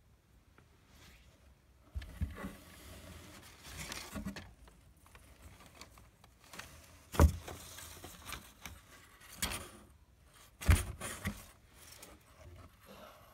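Crumpled packing paper rustling and crinkling as a cat burrows and shifts about inside a cardboard box. The rustling starts after a short quiet at the beginning. Two sharp knocks against the box stand out, one a little past halfway and one about three-quarters of the way through.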